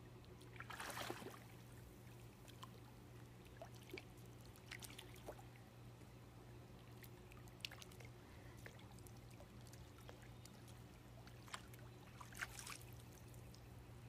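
Faint water sounds from a small dog swimming in a backyard swimming pool: light sloshing and trickling, with a brief splash about a second in and another near the end as it comes out of the water, over a steady low hum.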